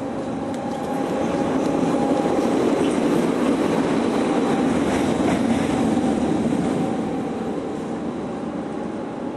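Green Cargo electric locomotive running light, with no wagons, passing close by on the track. It is a rumbling rush with a faint steady whine that grows louder about a second in and fades away after about seven seconds as it passes.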